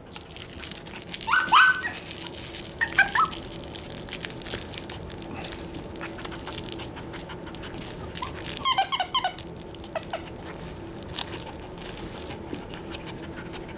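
Eight-week-old Cavapoo puppies at play: a short high yip about a second and a half in, another near three seconds, and a quick run of squeals around nine seconds, over small scrabbling clicks and rustling.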